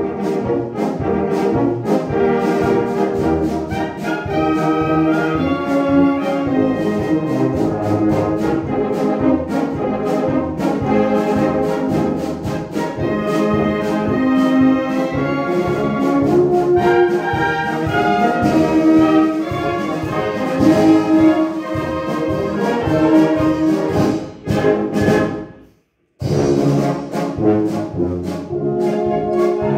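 A wind band of brass and woodwinds playing a polka with a steady beat. The music breaks off to silence for under a second about four seconds before the end, then carries on.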